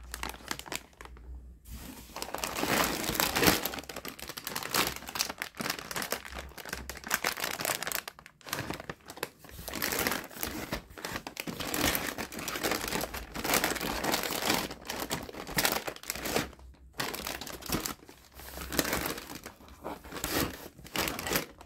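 Crinkly packaging crumpling and rustling as it is handled, in long runs with a few brief pauses.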